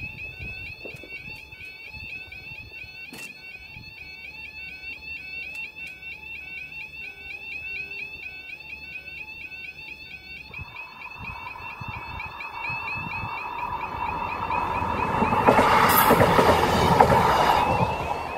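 UK level crossing alarm warbling continuously as the barriers lower and stay down. From about ten seconds in, a train's noise builds and it passes, loudest for the two or three seconds before the end, then begins to fade.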